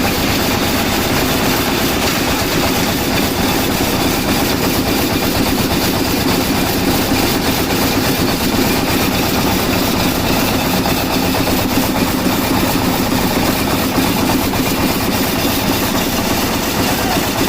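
Heavy engine-driven construction machine running steadily.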